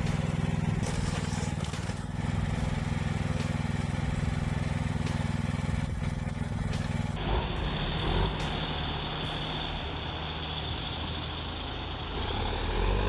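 The hydraulic power unit of a homemade firewood splitter running with a steady low hum, with a few faint knocks. About seven seconds in, the sound cuts abruptly to a duller recording of heavy machinery engines running.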